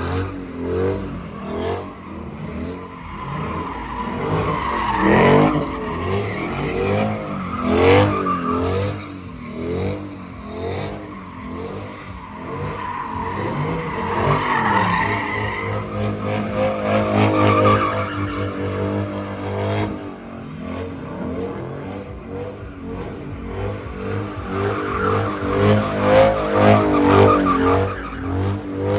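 Dodge Challenger and Dodge Charger engines revving up and down in quick waves while spinning donuts, tyres squealing and skidding on asphalt.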